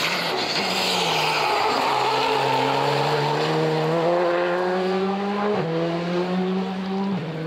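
Rally car engine accelerating hard through the gears: its pitch climbs steadily, then drops sharply at an upshift about three-quarters of the way through and again near the end, climbing again after each.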